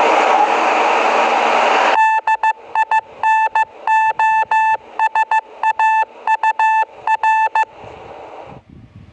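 A loud, steady hiss like static lasts about two seconds. Then an electronic Morse code beep, one steady mid-pitched tone, keys out dots and dashes, likely spelling "dinosaur", and stops abruptly about two seconds before the end.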